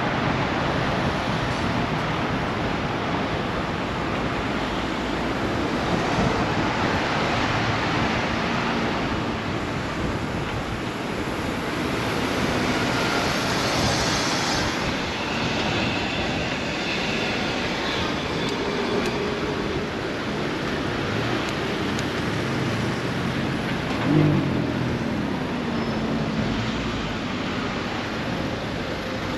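Continuous rushing road and wind noise heard from a moving bicycle in city traffic. About 24 seconds in there is a brief louder sound with a falling tone.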